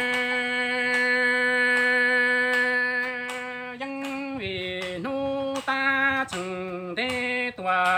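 Unaccompanied Hmong kwv txhiaj sung poetry by a man's voice: one long held note, then from about four seconds in, short sung syllables that swing between a higher and a lower note with falling glides.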